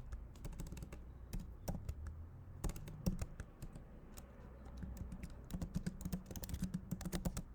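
Typing on a computer keyboard in irregular bursts of keystrokes with short pauses between, as code is edited.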